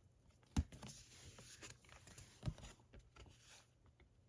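Glossy photo cards being handled: faint rustling and sliding, with two soft taps, one about half a second in and one about two and a half seconds in.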